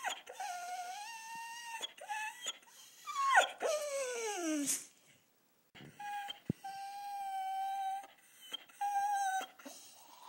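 Airedale terrier howling and whining in a string of long, high cries, one sliding steeply down in pitch about halfway through, then steadier held notes after a brief pause. It is her 'singing' to demand her dinner.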